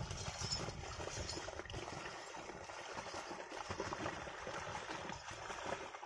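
A pair of bullocks and a wooden plough wading through a flooded, muddy paddy, their hooves and the plough sloshing and splashing in water and mud.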